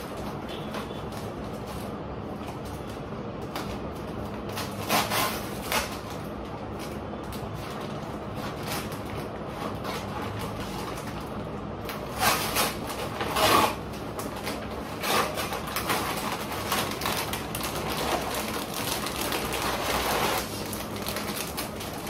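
A clothing parcel being unwrapped by hand: packaging rustling and tearing in several short bursts, a pair about five seconds in and a busier run from about twelve seconds on, over a steady background noise.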